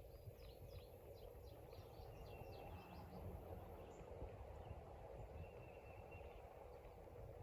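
Faint bird song: a quick run of short descending chirps over the first three seconds, with a thin held whistle twice, over a steady low outdoor rumble.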